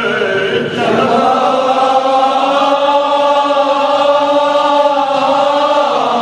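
A man's voice chanting a Kashmiri marsiya, a mourning elegy, drawing out one long, slightly wavering note for several seconds.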